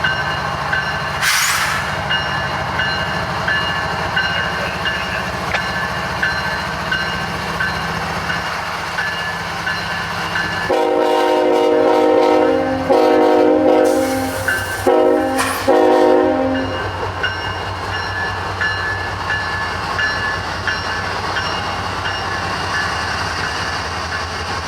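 Locomotive air horn sounded in a string of blasts by CSX 3409 as the train pulls away: one long chord of several notes starting about eleven seconds in, then four shorter blasts. The locomotive's diesel engine rumbles steadily underneath.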